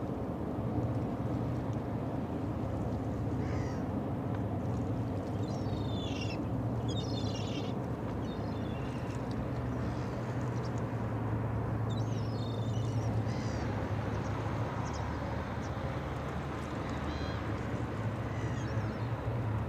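Gulls calling several times over a steady low hum from the berthed ro-ro ship's running engines.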